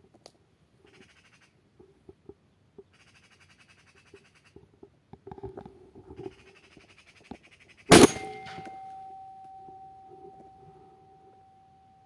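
Magpies chattering in three harsh rattling bursts, then a single loud shotgun shot about eight seconds in. A steady high tone hangs on for several seconds after the shot.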